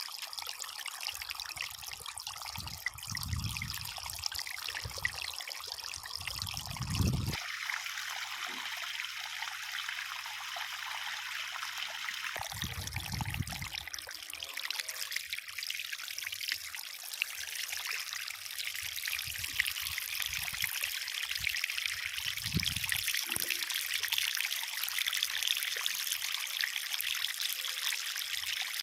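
Water trickling steadily over a small concrete garden waterfall, with a few brief low rumbles along the way.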